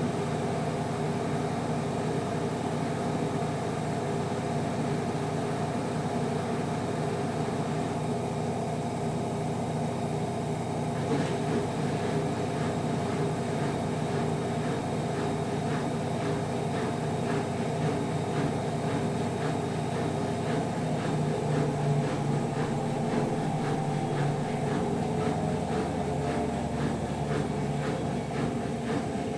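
Gorenje WaveActive washing machine running: a steady motor hum made of several held tones. From about eleven seconds in a fine, fast rattle joins it, and the deepest hum shifts lower near the end.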